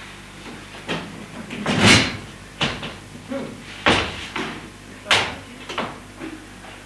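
A series of sharp knocks and thumps, roughly one a second, the loudest about two seconds in, with voices from the audience in the hall.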